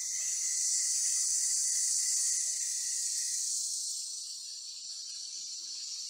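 Forest insects buzzing in a high, steady hiss that swells and then eases off, with a thin, steady, lower insect tone under it that stops about halfway through.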